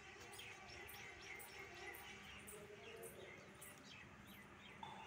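Faint chirping of small birds: short, falling chirps repeated several times a second.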